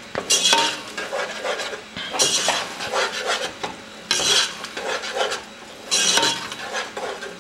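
A metal spoon stirring and scraping a thick blended pepper-and-tomato mix around a pot as it fries in hot palm oil, a scraping swish about every two seconds over a low sizzle.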